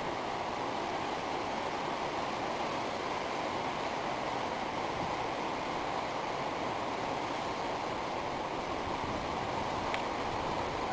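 Steady, even rushing noise with no tones or rhythm, and a faint click near the end.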